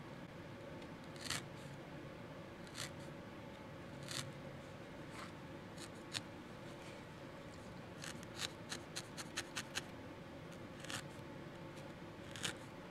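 Felting needle stabbing repeatedly into a felted wool ball, tacking loose wool roving down, each jab a short, faint sound. The jabs come irregularly, with a quick run of them about eight seconds in.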